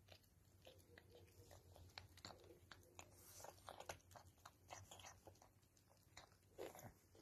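Faint, irregular wet clicks and munching of a kitten chewing crumbled food from a bowl.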